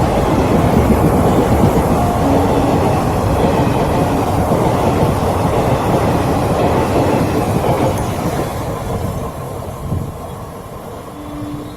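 Indian Railways train running on the track, its wheels clattering over the rails. The sound is loud, then grows quieter over the last few seconds.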